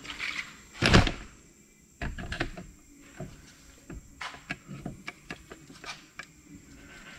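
Handling noises: a plastic parts bag rustling, then a single loud thunk about a second in, followed by scattered light clicks and knocks.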